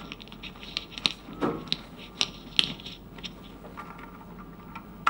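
Scattered sharp clicks and light knocks, about a dozen, most of them in the first three seconds, over a faint steady room hum.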